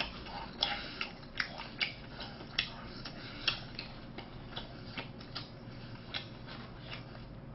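Quiet eating sounds from a boxed lunch eaten with chopsticks: scattered light clicks and mouth smacks at an irregular pace, over a faint steady room hiss.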